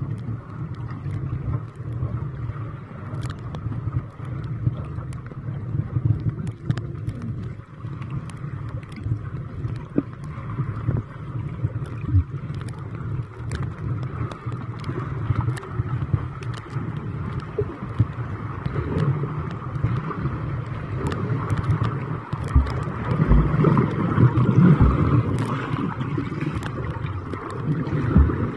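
Underwater ambience picked up by a submerged camera: a steady, muffled low rush of water with many scattered sharp clicks and ticks. It grows louder, with a few dull low thumps, a few seconds before the end.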